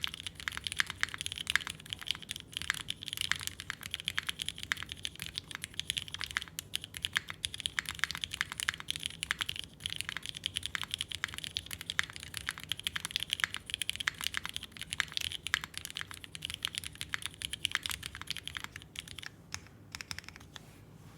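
Continuous fast typing on a custom mechanical keyboard fitted with lubed vintage Cherry MX Black linear switches in an aluminium full plate, O-ring mounted, with GMK keycaps: a dense run of keystroke clicks that thins out near the end.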